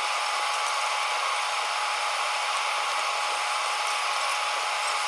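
Steady hiss of beef and tomato pieces sizzling and simmering in a frying pan on a gas hob, with a faint high whine held under it.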